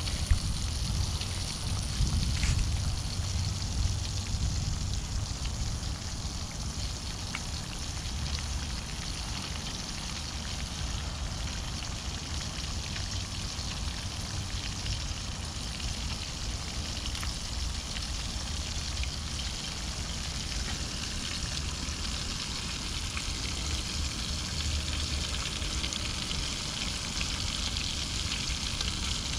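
Catfish pieces deep-frying in a pan of hot oil on a propane camp stove: a steady crackling sizzle over a low rumble.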